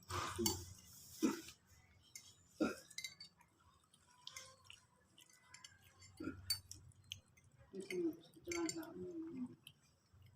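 A few light clinks and knocks, spaced out over the first three seconds, then a low, indistinct voice later on.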